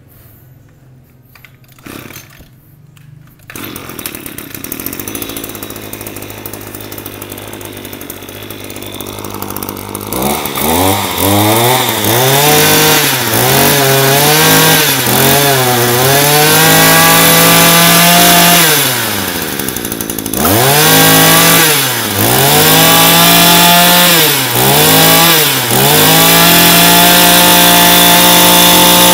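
Echo EGT 220 brush cutter's small two-stroke engine catching a few seconds in and idling, then revved again and again with the throttle trigger, each rev rising and falling, and held at high revs near the end. It runs smoothly, a sign of a healthy engine.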